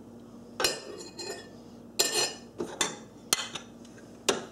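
Butter knife clinking and scraping against the inside wall of a ceramic ramekin, a string of sharp clinks and short scrapes. This is the knife being worked around the edges of a baked lava cake to loosen it from the dish.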